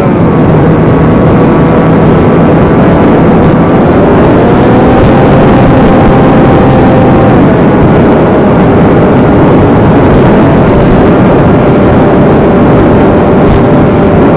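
Versa Wing RC flying wing in flight: the whine of its electric motor and propeller over loud rushing noise. The pitch rises about four seconds in and falls back a few seconds later as the throttle changes.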